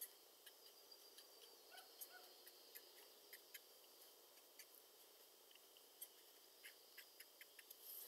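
Near silence: faint room hiss with scattered small, soft ticks.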